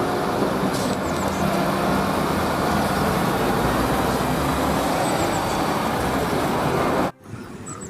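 Steady motor-like rumble with a hiss over it and a faint hum, cutting off suddenly a little before the end.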